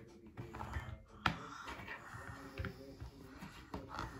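Small plastic clicks and taps from a Play-Doh plastic knife and toy parts being handled against a wooden table, with one sharper click about a second in.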